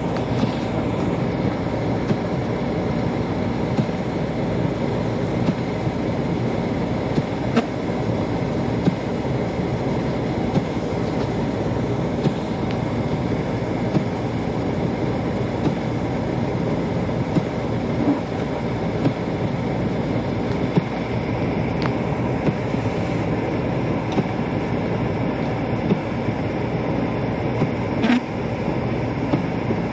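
Steady low road rumble of a car driving, heard from inside the cabin, with a few faint clicks and knocks.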